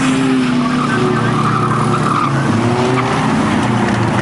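Banger-racing cars' engines running hard on the track, with tyres skidding and a squeal of tyres on tarmac around the middle.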